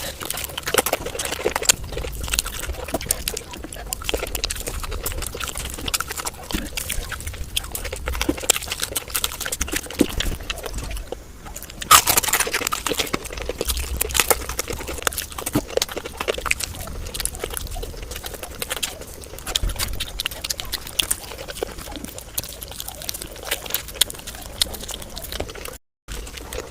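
Fast, close-miked eating sounds: continuous wet chewing, lip-smacking and slurping, a dense run of small clicks. The sound jumps louder about halfway through and drops out for a moment near the end.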